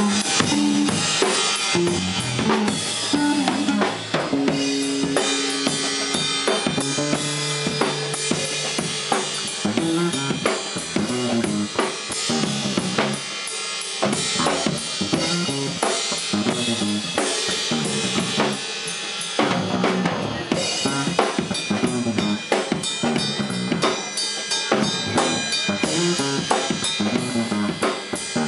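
Live instrumental jam on a Pearl drum kit and an electric bass. The drums play busily with constant kick, snare and cymbal hits, while the bass holds long notes in places.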